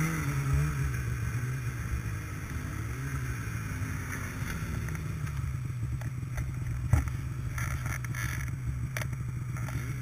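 Snowmobile engines running at low speed, their pitch rising and falling in the first few seconds and then holding steady. A single sharp click about seven seconds in.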